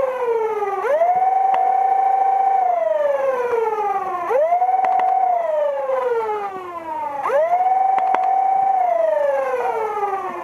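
Flywheel motors of a dual-stage Nerf blaster revving: each time the whine climbs quickly to speed, holds for about a second and a half, then falls slowly as the flywheels coast down. This happens three times, about every three seconds.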